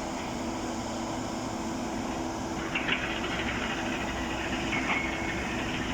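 Steady machinery drone with a constant low hum. Short high metallic clatter and scraping come about three seconds in, and a brief squeal near five seconds.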